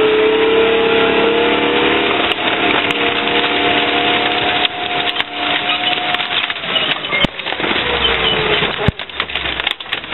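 Chieftain tank's engine running with a steady note as the tank rolls onto a Subaru Legacy estate car. The car's body and roof crunch under it and its windows shatter in a run of sharp cracks and snaps, with a couple of heavy bangs. About six and a half seconds in, the engine note falls away.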